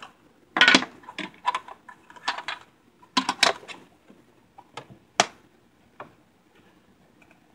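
Fidget spinner packaging being handled and pried open: a scattered run of sharp, irregular clicks and crackles of plastic and card, dying away about six seconds in.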